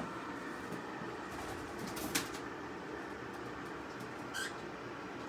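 Small pet birds giving two short, faint chirps, about two seconds in and again a little after four seconds, over a steady room hum.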